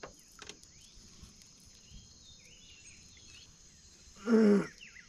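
Steady high-pitched buzzing of an insect chorus, with scattered short bird chirps and a few faint clicks. About four seconds in comes a loud, short, held voice-like call.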